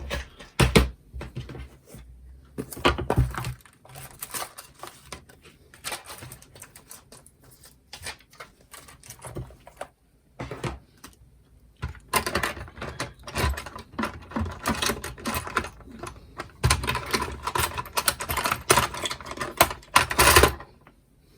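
Hands rummaging through small hard craft supplies to get out rhinestones: quick, irregular clicks and rattles, sparse at first, then in two long busy stretches in the second half.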